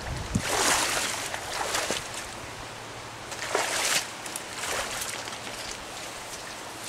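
Nylon backpack and waders rustling in a few short swells as the pack is swung onto the back and the wearer climbs through brush. Under them runs the steady rush of a trout stream.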